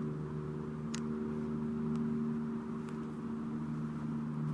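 A steady low mechanical hum made of several held tones, with a faint click about a second in.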